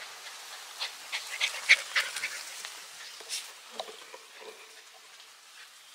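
Miniature pinscher puppies play-fighting, giving a quick run of short, sharp yips and squeals about a second in, then a few fainter ones.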